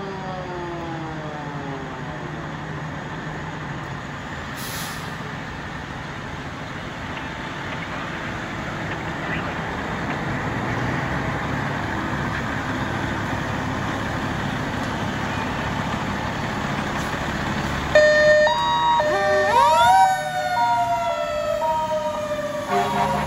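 Fire truck pulling out on its emergency run. Its engine runs steadily, growing louder as the truck comes out and turns. A falling siren tone fades out at the start. About 18 seconds in, the siren sounds loudly in hi-lo, alternating between two tones, then sweeps up into a wail that slowly falls.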